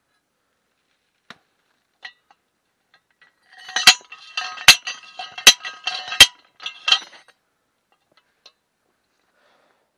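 Homemade sliding hammer driving a steel pepper-support pipe into the ground: five metal-on-metal strikes about three-quarters of a second apart, each ringing with a clink, preceded by a couple of light clicks as the hammer is set onto the pipe.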